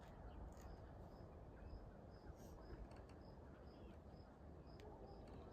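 Faint cricket chirping, short high chirps evenly repeated about twice a second, over quiet background hiss.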